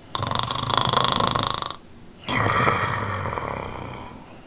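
A man snoring in his sleep: two long, rattling snores with a short pause between them, the second one fading out.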